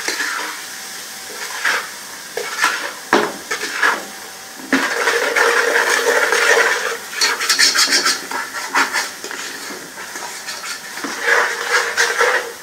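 Spatula stirring and scraping ginger-garlic paste and ground spices frying in oil in a nonstick pot, in irregular strokes with a few knocks against the pan.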